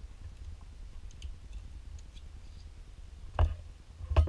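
Small handling clicks of a digital caliper and a small aluminium part over a low hum, then two sharp knocks near the end, the second louder, as the caliper is put down.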